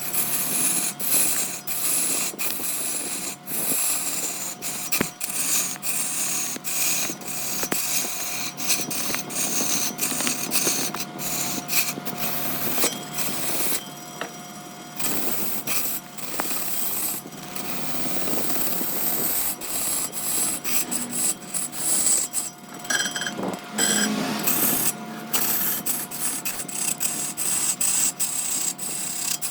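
Large wood lathe spinning a wooden workpiece while a tool is held against it: a rapid rasping, scraping sound over a steady hum, easing off briefly about halfway through and again near three-quarters of the way.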